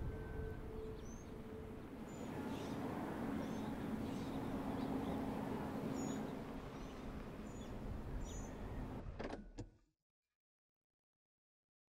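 Outdoor ambience of steady background noise with birds chirping now and then over a low, steady hum. About nine seconds in come two or three sharp knocks, then dead silence.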